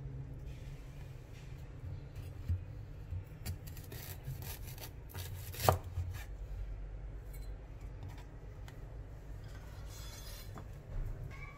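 Kitchen knife slicing through a fresh ginger root and knocking on a wooden cutting board: a few separate cuts, the loudest about halfway through.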